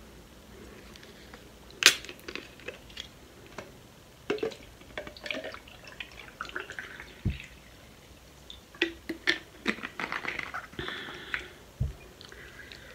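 Scattered clicks, taps and small handling noises as hands move things about at the table, with one sharp click about two seconds in and a busier run of small sounds near the end, as a hand reaches into the sauce-covered seafood boil.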